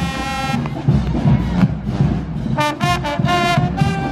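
Brass band playing: a held chord cuts off about half a second in, then after a pause of about two seconds a run of short notes begins.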